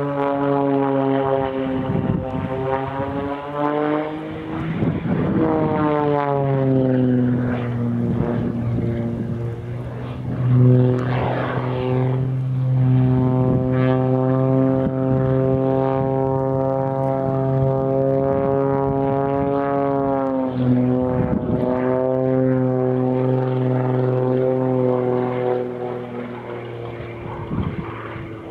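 Extra 330SC aerobatic plane's six-cylinder Lycoming engine and propeller running hard through a display routine, the note swinging down and up in pitch as it dives, rolls and climbs. It holds steadier through the middle and fades near the end as the plane climbs away.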